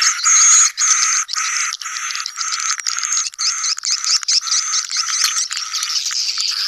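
Swiftlet colony lure recording: many edible-nest swiftlets calling at once, dense chirping and twittering that pulses about two to three times a second. It is a 'sedot anakan' call, played in swiftlet houses to draw in young birds.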